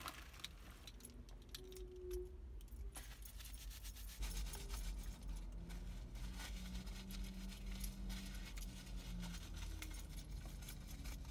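Small clicks and rustles of eyeglasses being handled and wiped with a paper napkin, over a low steady hum that grows stronger about four seconds in.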